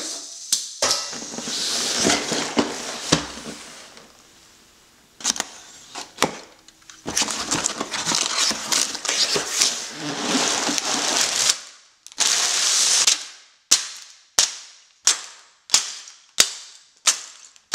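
Cardboard box flaps being torn open and plastic bags of Lego pieces rustling and crinkling, with scattered sharp clicks. From about two-thirds of the way in, a regular run of short sharp snaps, about three every two seconds, each dying away quickly.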